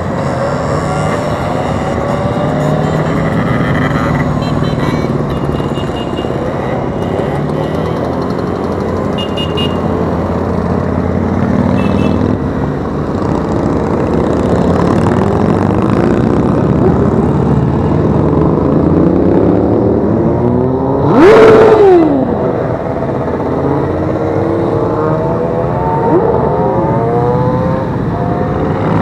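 A procession of motorcycles riding past one after another at low speed: a steady blend of many engines, with each bike's pitch dropping as it goes by. About twenty-one seconds in, one bike passes much louder, the loudest moment.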